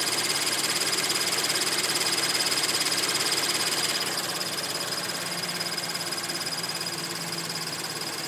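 Scion FR-S's 2.0-litre flat-four engine running, with a rapid, high-pitched chirping from under the hood over the steady engine hum. The chirp gets a little quieter about halfway through.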